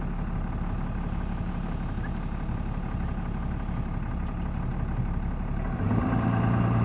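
A vehicle engine running steadily with a low drone, growing louder and heavier about six seconds in as it pulls harder.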